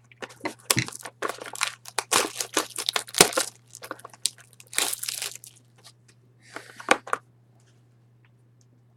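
Plastic wrapping on a trading card box being torn and crinkled: dense, irregular crackling for about seven seconds, then stopping, over a faint steady low hum.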